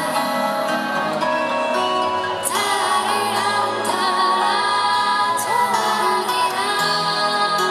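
A woman sings a slow song live into a microphone, accompanying herself on a strummed acoustic guitar.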